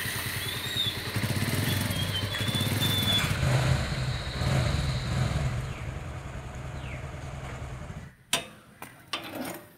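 Motorcycle engine running as the bike rides along, with a steady low throb that fades out about eight seconds in. A sharp knock follows, then a couple of softer knocks near the end.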